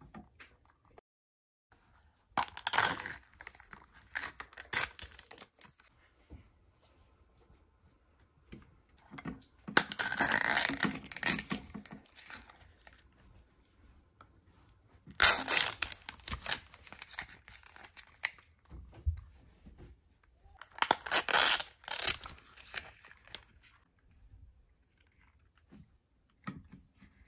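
Thin plastic wrapping being torn open and crinkled by hand, in four separate bursts of a couple of seconds each.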